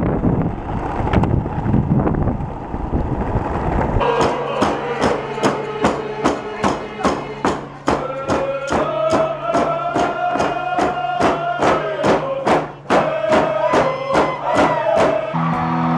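A group of hand drums beaten together in a steady beat, about two to three strikes a second, under chanted group singing in long held notes. This begins about four seconds in, after a low rumbling noise.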